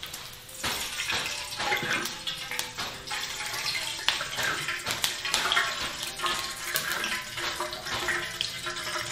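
Chopped dried radish sizzling in a large iron wok, with a steady hiss and the metal spatula scraping and tapping against the pan as it is stirred.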